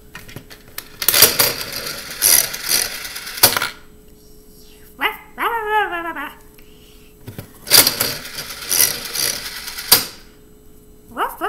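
Toy mini Jumbo Slot machine played twice: each lever pull sets the reels whirring and clattering for about two and a half seconds, and each spin stops with a sharp click. Between the spins comes a wavering puppy-like whine, and near the end a quick run of short yips.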